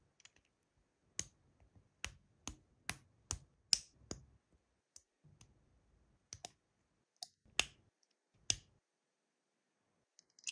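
Small plastic LEGO pieces being snapped together by hand: a series of about a dozen sharp clicks, coming about two a second for a while, then more spread out.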